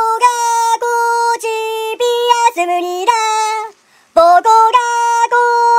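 A high-pitched singing voice carries a tune of short held notes that step up and down in pitch. It breaks off briefly about two-thirds of the way through, then carries on.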